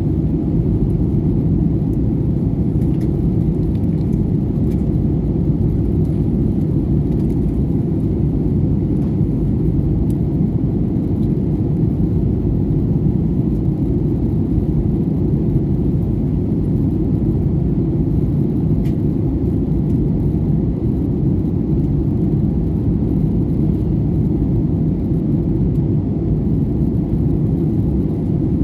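Steady low rumble of an airliner cabin in flight: engine and airflow noise heard from inside the cabin, unchanging throughout.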